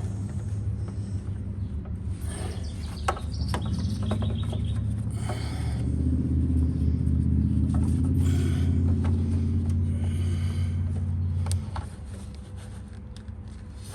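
A low, steady engine-like rumble and hum grows louder about six seconds in, then drops off sharply near twelve seconds. Scattered light clicks and scraping sounds, from hands working the plastic clips of the ignition switch, run over it.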